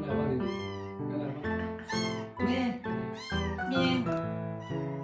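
A cat meowing several times, short rising-and-falling calls, over background music with steady held notes.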